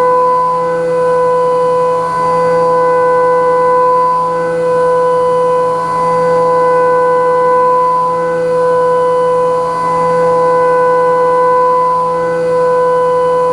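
Haas Minimill CNC mill cutting metal with a 3/8-inch IMCO M223 Streaker end mill under flood coolant: a loud, steady, high-pitched singing tone from the cutter, its loudness dipping briefly about every two seconds.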